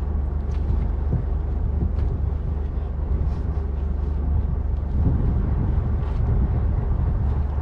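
Fishing boat's engine running with a steady low drone, with wind buffeting the microphone and a few faint knocks.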